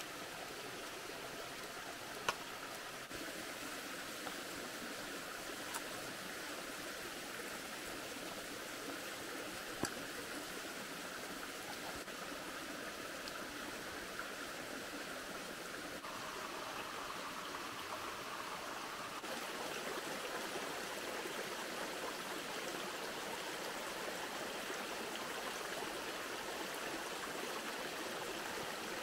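Small rocky forest stream running steadily, a continuous babble and trickle of water over stones. A few sharp clicks stand out in the first ten seconds.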